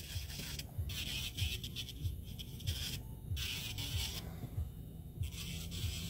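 Electric nail drill with a thin sanding band on a mandrel, run at low speed, lightly buffing and etching the surface of a fingernail. A faint sanding hiss that stops and starts several times as the band is lifted and set back on the nail.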